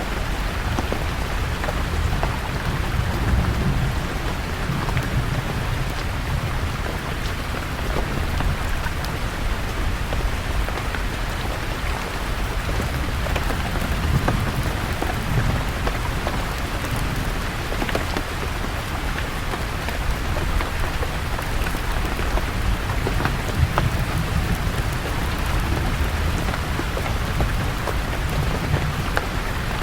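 Steady rain falling on leaves, with a low rumble of distant thunder swelling up a few times.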